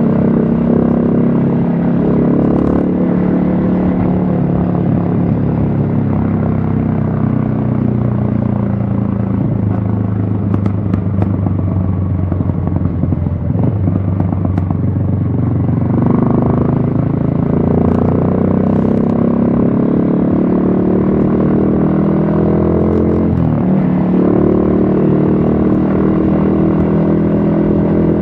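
Yamaha XSR155's single-cylinder engine under way: the note falls away as the bike slows, then climbs again as it accelerates from about halfway, with a short break in the pitch later on as of a gear change.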